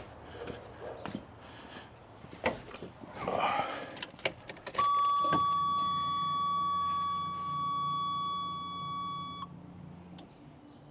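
Car keys jangling and clicking at the ignition. About five seconds in, the car's warning chime sounds as one steady high beep for about four and a half seconds as the ignition is switched on, with a low hum underneath.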